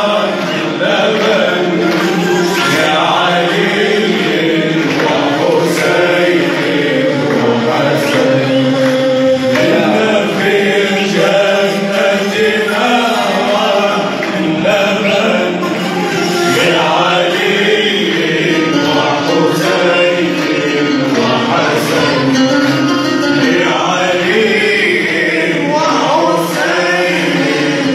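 Male nasheed ensemble singing together, several voices in harmony over a steady low drone.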